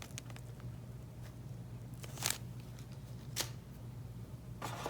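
Small accessories and their plastic packaging being handled: a few short rustles and clicks, about two, three and a half seconds in and again near the end, over a low steady hum.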